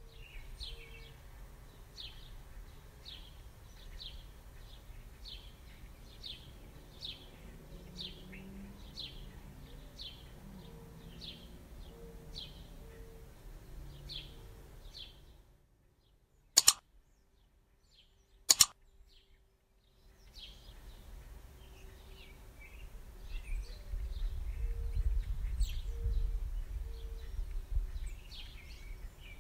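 A small bird chirping over and over, short falling chirps about once a second. Midway there are two sharp clicks about two seconds apart, and a low rumble comes in near the end.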